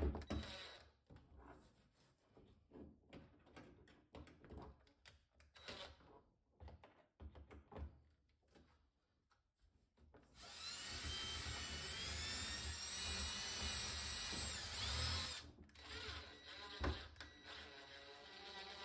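Ridgid cordless drill driving a screw into the particleboard cabinet floor, sinking its head just below the surface. After a few faint handling clicks, the motor runs for about five seconds with its whine wavering in pitch, then makes a second, shorter and quieter run near the end.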